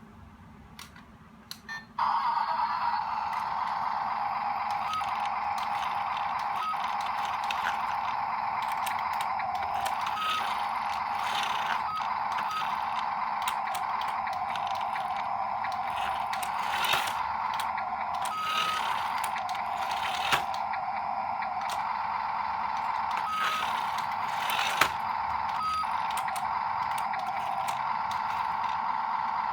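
Small electric motors and plastic gearboxes of radio-controlled construction models whining steadily, starting about two seconds in after a few faint clicks. Short clicks, scrapes and brief higher tones break in now and then over the whine.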